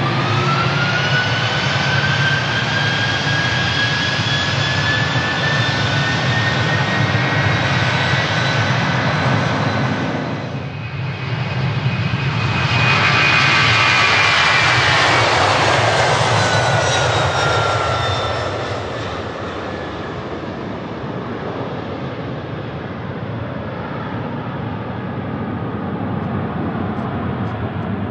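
Airbus A300B4 twin turbofan engines at takeoff thrust: loud jet engine noise with a whining tone that rises in pitch at the start. After a short dip about ten seconds in, the sound swells again with the whine falling in pitch, then fades as the plane climbs away.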